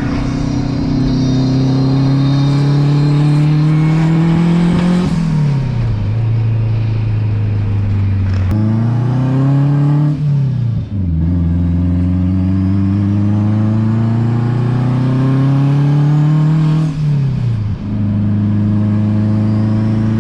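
Turbocharged Honda Accord wagon engine pulling under acceleration, its pitch climbing steadily and then dropping sharply three times, as at gear changes.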